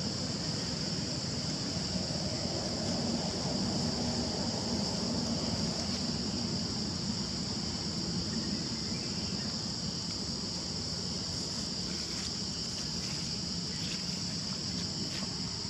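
Insects droning steadily in a high continuous buzz, over a low even rumble.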